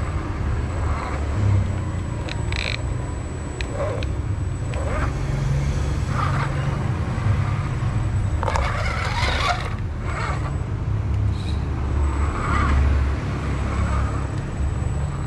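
Injora 4WS RC rock crawler's electric motor and gears whirring in short pulses over a steady low rumble as its tyres scrabble against a concrete step, failing to climb it. A longer burst of scraping about eight and a half seconds in.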